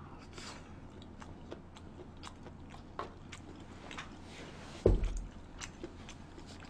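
Close-miked chewing of a mouthful of food, with small wet mouth clicks scattered throughout. A single dull thump about five seconds in.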